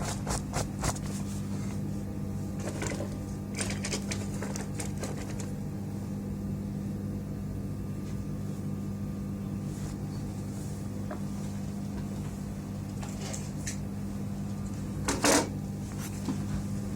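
Scattered clicks and light knocks of circuit boards and parts being handled, with one louder knock about fifteen seconds in, over a steady low electrical hum.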